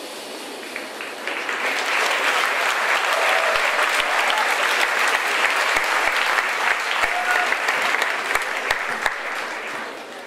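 Audience applauding, swelling about a second in and fading off near the end.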